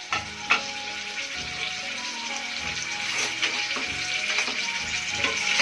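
Ground spices, dried red chillies and bay leaves sizzling in hot oil in a pressure cooker, with a few sharp crackles along the way.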